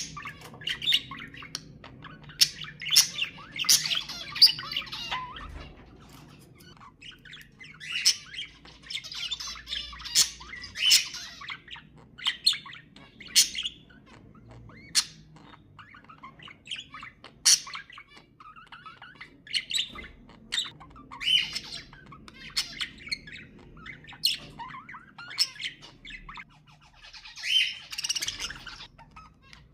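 Budgerigars chattering and squawking: sharp high chirps in irregular clusters, with stretches of faster warbling chatter between them.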